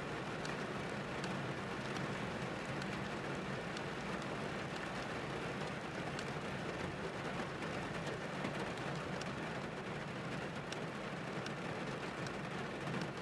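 Rain falling on a car's roof and windows, heard from inside the cabin: a steady hiss with scattered small drop ticks.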